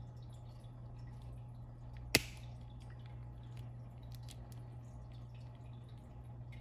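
Small flush cutters snipping the plastic hub of a singing fish's nylon crown gear: one sharp snap about two seconds in, amid faint clicks of handling. A low steady hum runs underneath.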